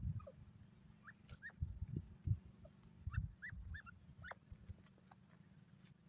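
Grey francolin giving about ten soft, short, rising squeaky notes, in loose groups, over a low rumble.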